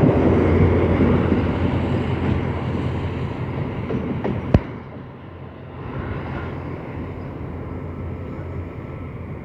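TCDD DE24000-class diesel-electric locomotive passing close with its coal train, its engine rumble and wheel noise on the rails fading as it moves away. A single sharp click comes about four and a half seconds in.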